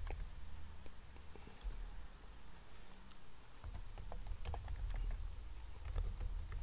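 Computer keyboard typing: scattered, soft keystrokes at an irregular pace over a low steady hum.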